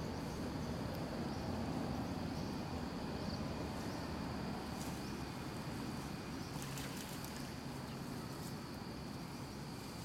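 Outdoor ambience: insects keep up a steady, thin high drone over a low rumble, with a few faint ticks near the middle.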